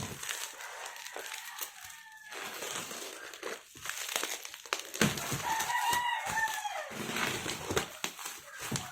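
Plastic wrapping and tape crinkling and rustling as a tightly wrapped box is cut open with a utility cutter. A short animal call sounds about two seconds in, and a longer one with a rising-then-falling pitch about five and a half seconds in.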